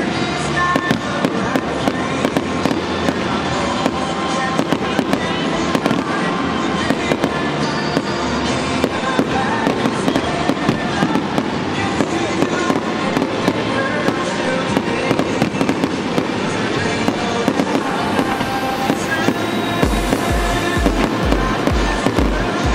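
A fireworks display: many sharp bangs and crackling bursts over a song played on a stadium sound system. A steady low beat comes in near the end.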